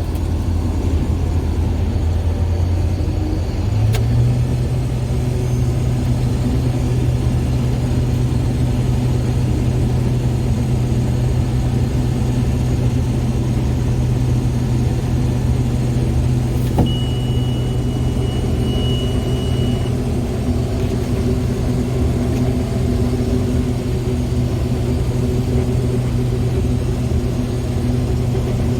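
A vehicle engine running steadily, its low hum stepping up in pitch about four seconds in. A thin, high, steady tone sounds for about three seconds a little past halfway.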